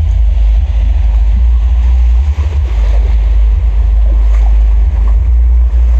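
Heavy wind buffeting the microphone: a loud, steady low rumble with a rough rushing noise above it.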